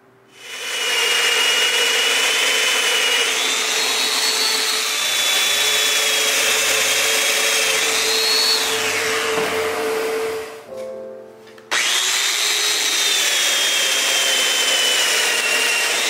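Festool Domino joiner running as it cuts mortises in walnut: a steady motor whine over cutting noise, rising and falling in pitch as the cutter works into the wood. About ten seconds in it winds down, then starts again suddenly about a second later.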